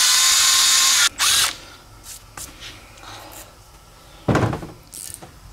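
Cordless drill boring through a metal plate clamped in a vise, running at full speed for about a second and then once more briefly. A short clatter follows about four seconds in.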